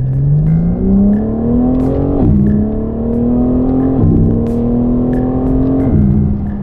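Car engine accelerating hard through the gears: the revs climb, fall at an upshift about two seconds in, climb again and fall at another shift about four seconds in, then climb once more before a third shift near the end.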